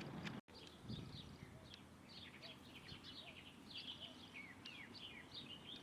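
Small birds chirping and twittering: many quick high notes and short downward-sliding calls overlapping one another. The sound cuts out for an instant about half a second in.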